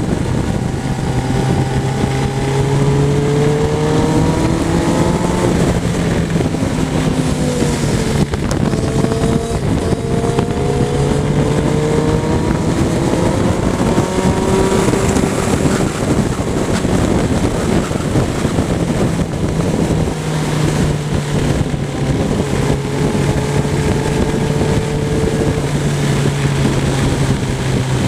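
Motorcycle engine accelerating through the gears, its note rising and then dropping back at each upshift, a few times over, under steady wind noise on the microphone.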